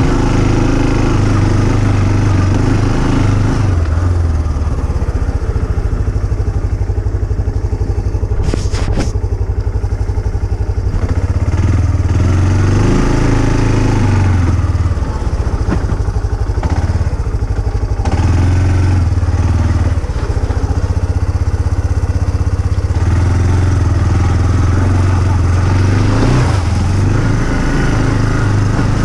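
Off-road vehicle engine running continuously on a trail ride, its pitch rising and falling as the throttle changes. A brief clatter comes about nine seconds in.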